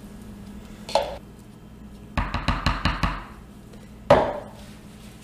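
Wooden soap loaf mold knocked against the table to settle freshly poured cold process soap batter: one knock, then a quick run of about seven taps, then a single louder knock.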